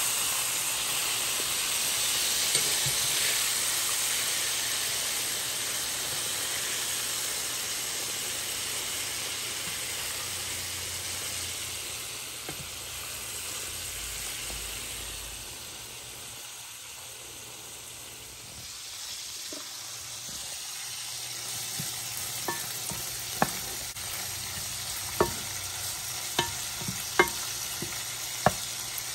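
Meat cutlets frying in hot oil in a pan, a steady sizzle that grows quieter past the middle. In the last several seconds a utensil knocks sharply against the pan about six times during stirring.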